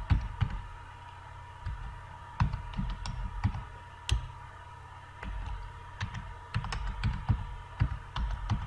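Typing on a computer keyboard: irregular keystrokes in short uneven runs, over a faint steady hum.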